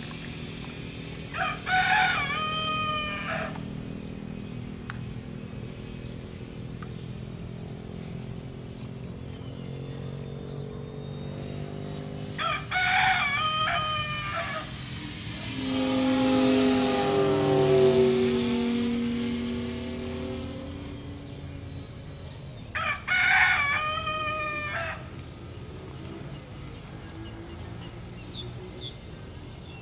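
A rooster crowing three times, each crow about a second and a half long and roughly ten seconds apart. Between the second and third crows, a rushing sound swells and fades over about five seconds.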